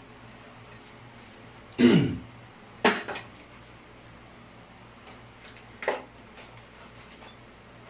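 A short cough about two seconds in, then two sharp clinks of hard objects, about a second and about four seconds after it.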